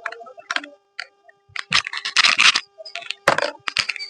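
Irregular clicks and scrapes of plastic parts of a cordless pressure washer being handled while its nozzle is changed, with short bursts of hiss about two seconds in and near the end.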